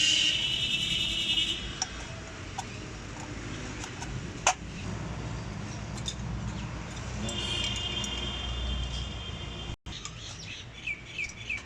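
Birds chirping over a steady low background rumble, in a run at the start and again about two-thirds of the way through. A single sharp metallic click comes about four and a half seconds in, with a few fainter clicks, as small pump parts are handled.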